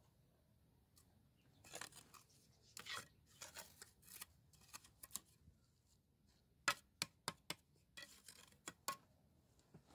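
Pointed steel mason's trowel scraping and working wet mortar into the joints between foundation stones, several rough strokes, followed by a few sharp clicks of the trowel striking the stone.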